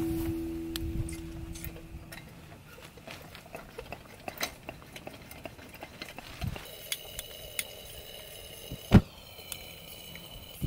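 Coleman pressurised liquid-fuel lantern being lit: a few small clicks as it is handled, then a steady hissing whistle from about seven seconds in, and a sharp pop about nine seconds in as the mantle lights.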